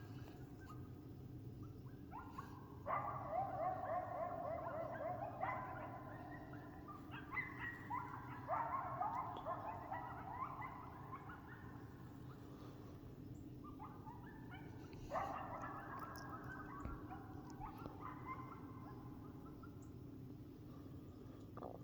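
A pack of coyotes yipping and howling together, many overlapping calls sliding up and down in pitch. The chorus comes in two bouts: one starting a few seconds in and lasting about nine seconds, and a shorter one around fifteen seconds in.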